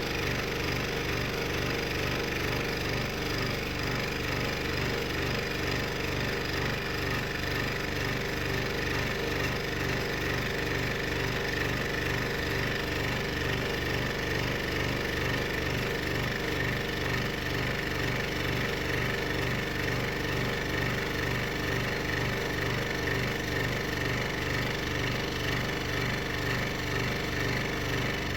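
Scroll saw running steadily, its spiral blade cutting through 12 mm plywood: an even motor hum under the fine, rapid chatter of the reciprocating blade in the wood.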